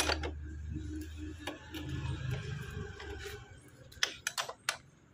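Steel ring spanner clicking and clinking on the rear axle nut as it is tightened: a low steady hum for the first few seconds, then a quick run of about five sharp metallic clicks around four seconds in.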